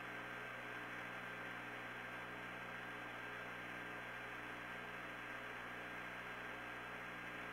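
Steady hum and hiss of the Apollo 16 mission audio recording between crew transmissions, with a faint steady high tone over it.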